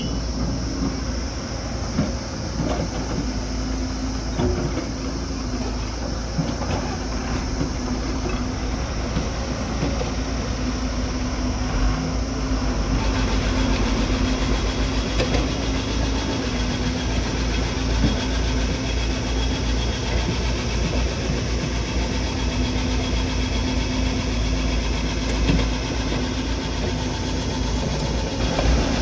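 Diesel engine of heavy earthmoving machinery running steadily at a constant pitch.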